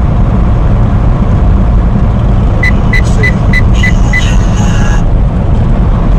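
Steady low drone of a Volvo semi-truck on the move. About a third of the way in, a run of six short high beeps sounds, about three a second.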